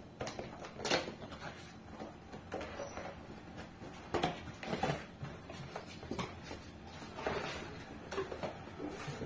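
Cardboard box being opened by hand: flaps pulled back and the cardboard rustling and scraping in irregular bursts as a metal cooking pot is drawn out of it.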